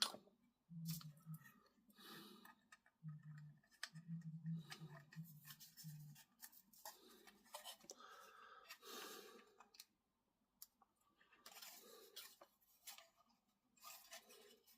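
Faint clicks and rustles of small plastic model-kit parts being handled and fitted, with a faint low hum coming and going in the first half.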